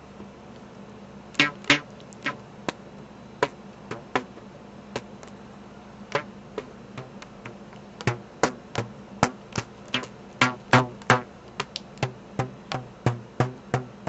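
Stretched rubber bands plucked by fingers, each giving a short, low twang. A few scattered plucks come first, then from about eight seconds in a quicker, steadier run of plucks, played as a makeshift instrument.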